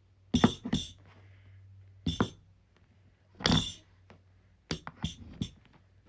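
Sharp knocks and clunks of pedicure-chair parts being handled and fitted together during assembly: about seven separate hits, the longest and heaviest about three and a half seconds in.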